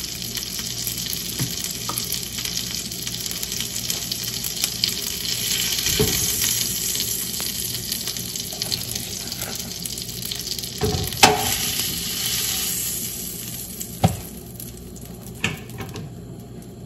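Eggs sizzling in a frying pan on a gas stove, a steady hiss that fades near the end, with a few sharp knocks, the loudest about two-thirds of the way through.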